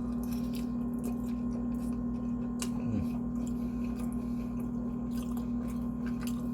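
Close-miked chewing and wet mouth sounds of someone eating fast food, small clicks and squelches, over a steady low hum.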